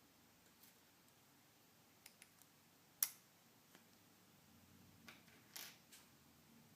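Near silence broken by small, sparse clicks and taps of a precision screwdriver and tiny screws against the iPhone 5's metal parts, with one sharper click about three seconds in.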